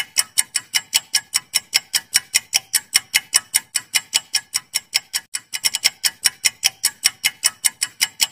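Clock-ticking sound effect for a quiz answer timer: fast, even, sharp ticks, about five a second, with a brief stumble a little past halfway, cutting off suddenly near the end.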